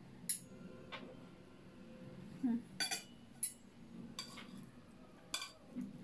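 Metal spoon and fork clinking and scraping against ceramic plates during a meal: several short, sharp clinks spaced irregularly over a quiet background.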